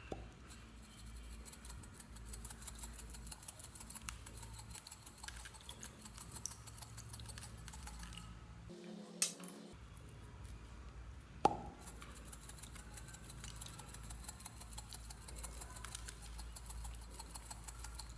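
Slime being mixed and squished by hand: rapid sticky clicks and little pops, several a second, thinning out after the middle, with one louder click about two-thirds of the way through.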